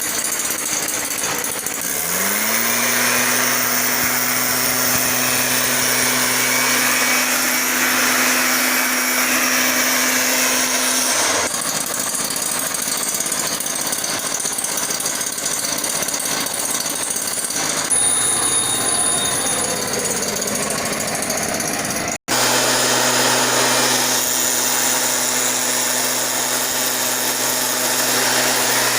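Larviciding spray machine's small engine running loudly with a rushing blast of air. It revs up to a steady speed about two seconds in, and the sound cuts out abruptly for an instant about two-thirds of the way through.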